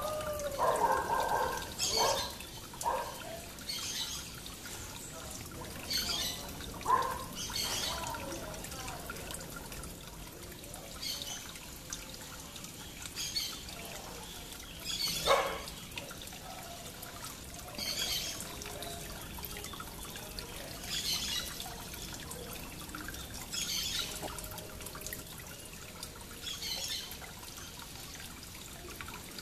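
Small birds chirping in short high bursts that repeat every couple of seconds, over a steady hiss. There is a louder, lower call pattern in the first few seconds and a single sharp, loud chirp about halfway.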